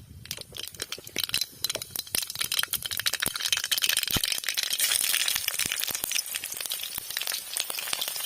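Hot oil in a cooking pan crackling and popping, building about two seconds in into a dense, steady sizzle as food fries.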